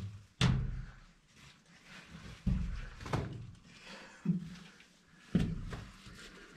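A series of dull knocks and scrapes, about five over a few seconds, from a man's body and gear bumping rock as he squeezes and climbs through a narrow cave passage.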